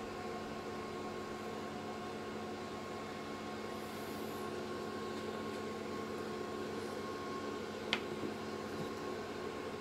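Steady electrical-machine hum with several fixed tones, like a running fan or bench equipment, and one sharp click about eight seconds in.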